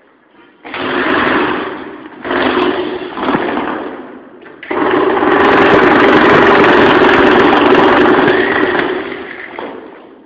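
Concrete saw running loud in three bursts, two short ones and then a longer run of about five seconds that dies away near the end.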